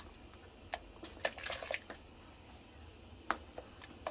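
Diced potatoes and celery pushed by hand off a plate and dropping into a pot of hot water: a few soft plops, taps and scrapes, bunched together between about one and two seconds in, then one sharper tap a little past three seconds.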